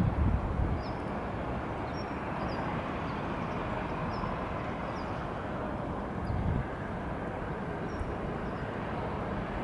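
Steady distant rumble of an approaching Shinkansen train mixed with city background, with scattered short high bird chirps. Wind buffets the microphone at the start and briefly about six seconds in.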